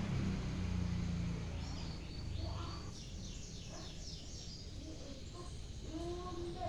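Small songbirds chirping: quick runs of high chirps in the middle, with a few lower short calls near the end, over a low rumble that fades in the first second or so.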